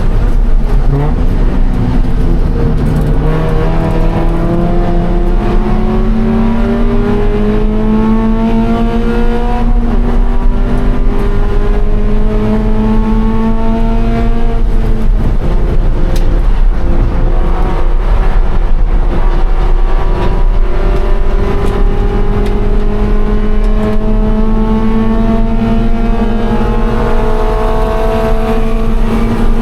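2013 Scion FR-S's 2.0-litre flat-four engine working hard under racing load. Its pitch climbs slowly through long pulls, steps down at a gear change about ten seconds in, drops again about halfway, then climbs steadily to the end.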